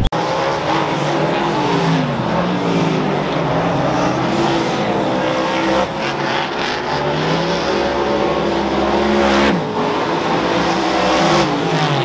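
Several speedway superstock V8 engines racing in a pack, their pitch rising and falling as the drivers accelerate and back off through the turns.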